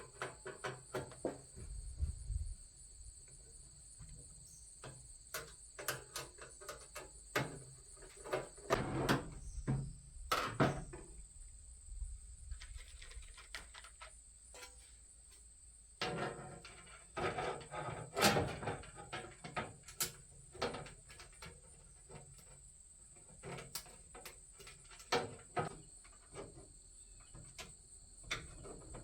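Screws being tightened into the sheet-metal frame of a Pit Boss vertical smoker: irregular clicks, taps and short metallic rattles, with a faint steady high-pitched drone behind them.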